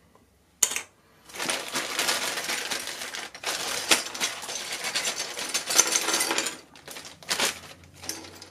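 Small hard plastic toy playset pieces clattering and rustling as they are rummaged through and handled, with dense clicks. A sharp click comes about half a second in, and the handling dies down near the end.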